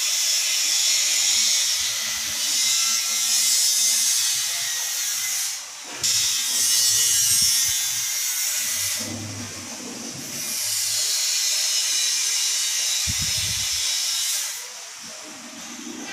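A loud, steady hiss in three long stretches with short breaks, with a few faint low bumps from the cabinet door and drawer being handled.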